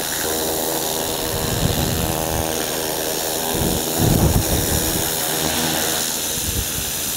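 Small engine running steadily, briefly louder about four seconds in.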